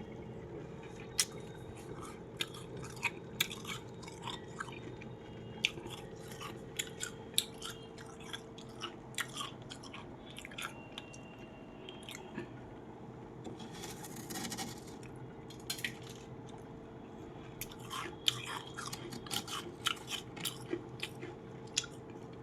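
Freezer frost being bitten and chewed close to the microphone: irregular sharp, crisp crunches, with a short hiss a little past halfway. A steady low hum runs underneath.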